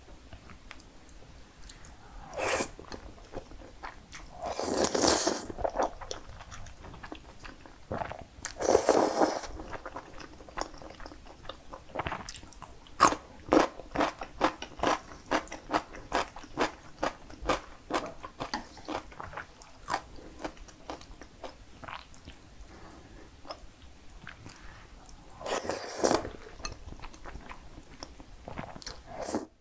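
Close-miked eating of cream-sauced spaghetti: about four long wet slurps of noodles, with a stretch of chewing full of rapid moist mouth clicks between them.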